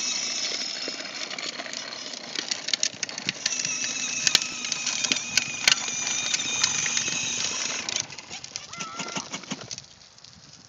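Battery-powered ride-on toy scooter's electric motor and gearbox whining steadily, with its hard plastic wheels rattling and crackling over wet asphalt. The whine stops about eight seconds in, leaving fainter rattling.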